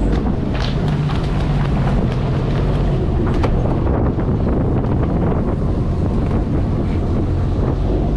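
Wind buffeting the microphone over the steady low drone of a fishing trawler's engine, with a few brief knocks on deck.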